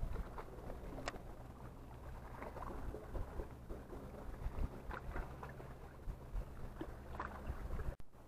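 A steady low motor drone with scattered small clicks and taps over it; it cuts off abruptly near the end.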